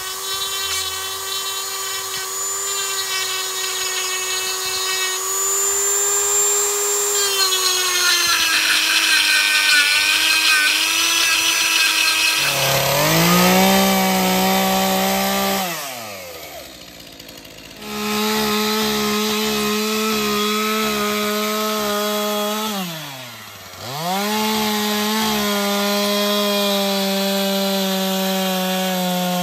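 A flexible-shaft rotary tool whines at high speed as it carves into wood, its pitch wavering under load. About twelve seconds in, a Stihl chainsaw takes over, running at full throttle as it cuts wood, its revs dropping to idle twice and climbing back up.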